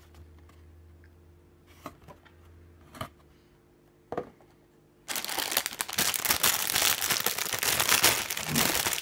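A few light knocks, then from about five seconds in a loud, continuous crinkling of the thin clear plastic bags that hold a plastic model kit's runners as they are handled.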